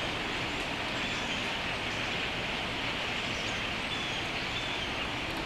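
Dense, steady chatter of a large flock of small birds, with a few clearer short calls standing out from it.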